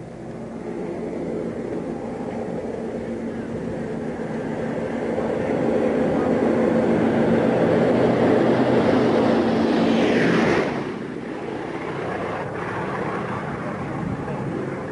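Boeing B-17 bomber's four radial piston engines droning with a steady propeller note, growing louder as it comes in low. About ten seconds in it passes overhead, the pitch dropping sharply, and the drone quietens as it flies away.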